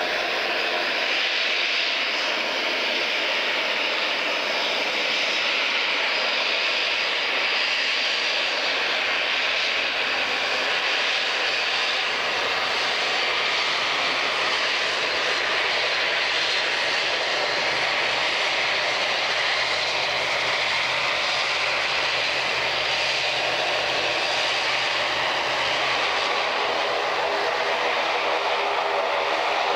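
Airliner engines running steadily: an even hiss and whine with faint steady tones beneath it, holding the same level throughout.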